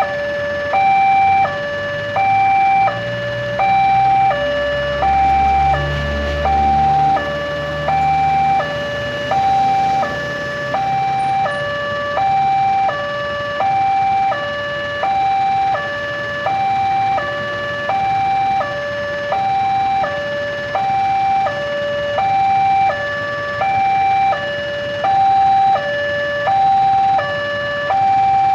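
Railway level-crossing warning alarm sounding from the signal's loudspeaker: an electronic two-tone, high then low, repeating about once a second, the signal that a train is approaching and the crossing is closed. A low rumble runs underneath from about three to nine seconds in.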